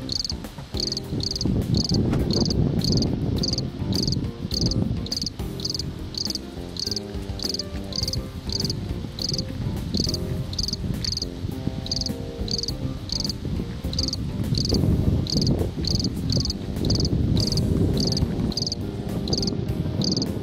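An insect chirping steadily at about two short chirps a second, each chirp a quick high trill. Underneath is a louder low background with some held tones.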